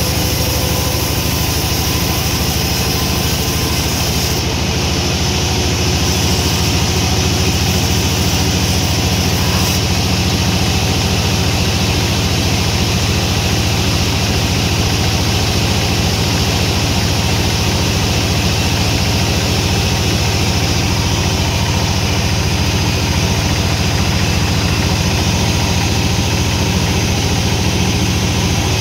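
Sawmill machinery running steadily, a constant low engine-like hum.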